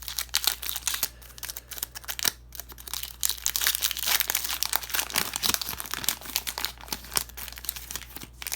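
A trading card pack's wrapper being torn open and crinkled by hand, a dense crackling with many sharp crackles throughout.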